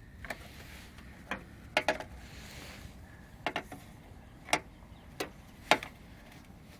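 Screwdriver tip clicking against the plastic of a Jaguar X-Type headlight wiring connector as it is worked in and levered: about nine sharp, irregularly spaced clicks, some in quick pairs.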